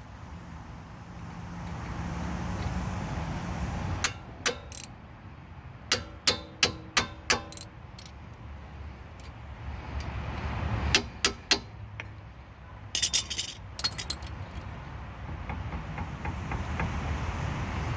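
Metallic clicking and clinking of hand tools on a car's brake caliper as the lower caliper bolt is tightened with a ratchet. The clicks come in several short groups of a few strokes each, with a quicker run of ringing clicks about thirteen seconds in.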